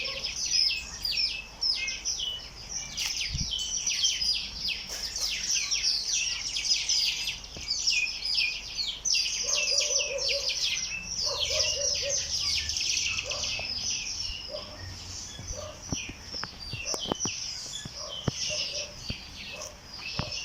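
A chorus of many small birds chirping and calling at once, dense and continuous, with a few short lower-pitched notes mixed in around the middle and some sharp clicks near the end.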